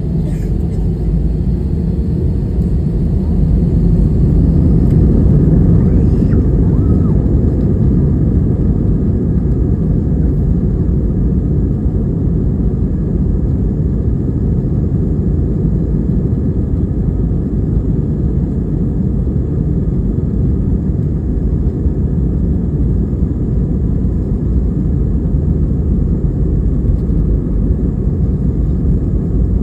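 Airbus A320-232 cabin noise: the steady, loud low rumble of its IAE V2500 engines and airframe heard from inside the cabin, swelling slightly a few seconds in.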